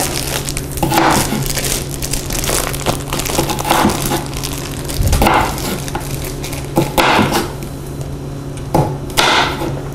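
Chef's knife slicing a cucumber on a wooden cutting board: a crunch through the cucumber and a knock of the blade on the board with each cut, slow and unevenly spaced, about every second.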